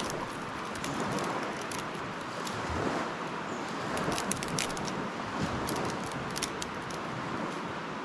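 Dry twigs and kindling crackling and snapping in quick irregular clicks while a campfire is being started, over a steady rushing background.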